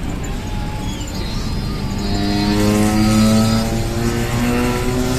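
Mercedes-Benz intercity bus's diesel engine running, growing louder about two seconds in as it pulls harder, with its pitch stepping a little after that.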